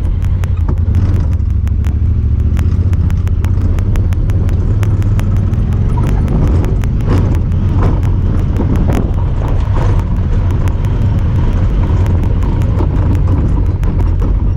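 Honda Talon 1000R side-by-side's parallel-twin engine running under way, a steady low drone with some surges in the middle. A rapid, even ticking runs alongside it, a noise the uploader puts down to the camera rather than the machine.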